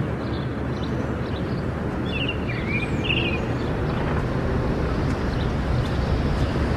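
Outdoor field ambience: a steady, even background noise, with a few short bird chirps about two to three seconds in.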